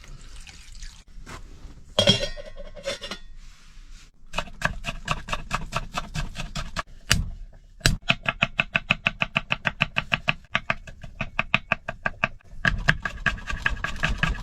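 Metal cookware clattering in a rapid, even series of ringing taps, several a second, after a few scattered knocks at the start.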